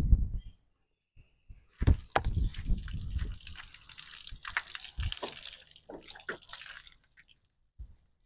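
Water from a hose splashing and hissing at an RV's fresh-water fill as the tank is filled. It starts about two seconds in and cuts off about seven seconds in, with a few knocks and low thumps.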